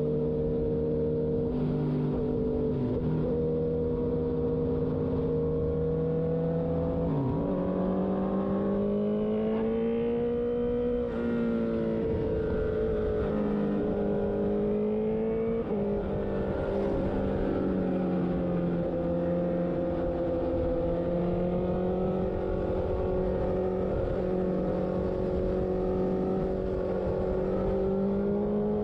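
Yamaha motorcycle engine running at road speed. Its pitch climbs for a few seconds, drops back about eleven seconds in, then holds fairly steady.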